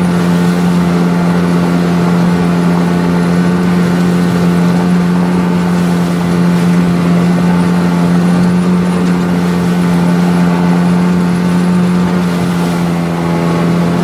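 9.8-horsepower outboard motor running steadily at constant speed, one unchanging pitch throughout.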